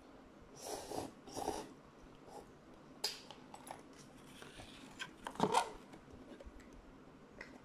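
A person slurping instant cup noodles twice, about a second in, then light clicks of the metal fork against the cup. The loudest sound is a short knock about five and a half seconds in, as the noodle cup is set down on a wooden table.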